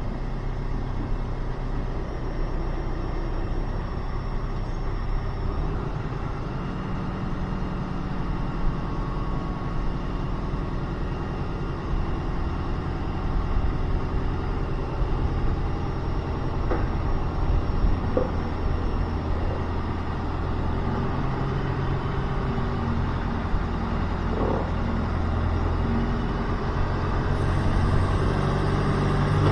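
Vehicle engine running steadily with a low hum, its pitch shifting a couple of times, with a few short knocks.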